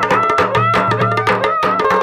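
Dhol and damau drums played together in a quick, dense rhythm of sharp strokes, with a held melodic line above that slides and wavers in pitch.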